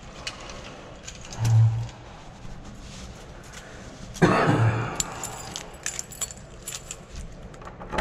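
A bunch of keys jangling and clicking from about five seconds in, as keys are worked at a door lock. Before that, two dull thumps, about a second and a half and about four seconds in; the second is the louder.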